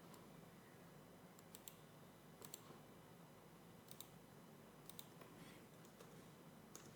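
Near silence with several faint, scattered computer clicks, irregularly spaced.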